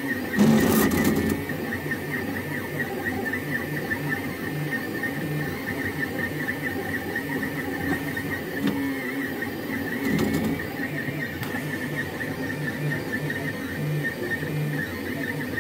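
XYZprinting da Vinci Duo 3D printer's X-axis stepper motor making a terrible squealing whine as the print head moves, with a steady high tone over a stuttering low pulse. It is louder for about a second near the start. The motor is getting only partial signals through failed wiring and is being told to do things it can't do.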